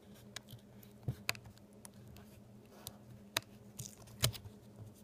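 A few faint clicks and taps of fingers handling the laptop LCD panel's video and power cable connector as it is pushed into its socket on the back of the panel, the sharpest near the end, over a steady low hum.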